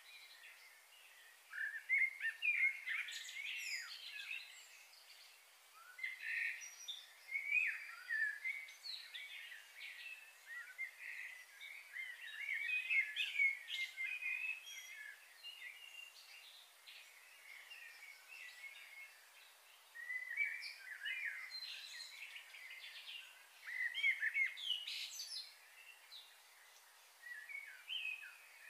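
Small birds chirping and trilling in repeated bouts over a faint steady hiss.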